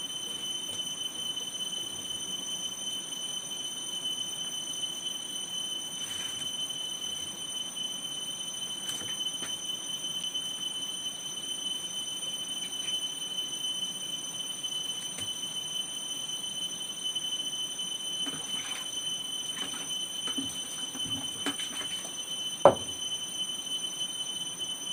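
A steady high-pitched whine runs under faint clatter and handling noises as food is dished onto plates, with one sharp knock about 22 seconds in.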